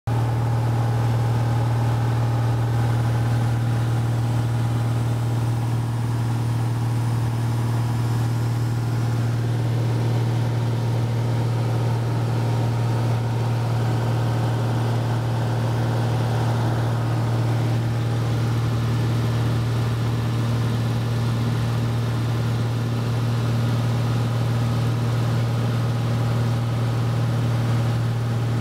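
Light aircraft's piston engine and propeller droning steadily in cruise, with a strong low, even hum, heard from inside the cabin.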